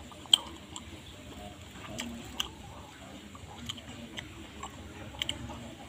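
A metal spoon stirring and scooping through seblak soup in a styrofoam takeaway box, with scattered light clicks and scrapes. The sharpest click comes about a third of a second in.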